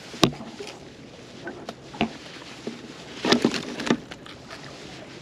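Sharp knocks and clicks of handling on a small fishing boat: one loud crack just after the start, another about two seconds in, and a short clatter around three to four seconds, over a steady hiss of sea and wind.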